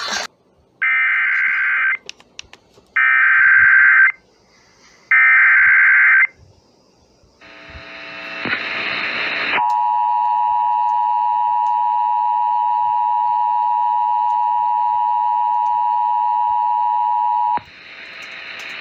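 Emergency Alert System activation: three short bursts of warbling digital data tones (the SAME header), then after a brief noisy rise a steady electronic attention tone held for about eight seconds that cuts off suddenly. This is the start of an alert for a severe thunderstorm warning.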